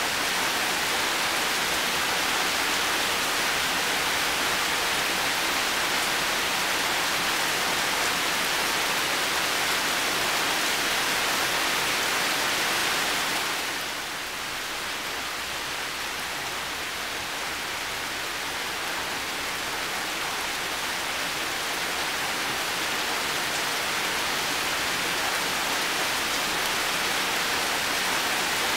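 Heavy rain falling in a steady, dense hiss. About halfway through it drops a little in level and turns duller, then slowly builds back up.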